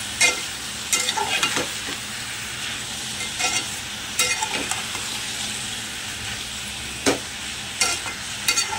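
Chicken pieces and chopped vegetables sizzling in a metal pot as a metal spatula stirs and turns them, scraping and knocking against the pot now and then.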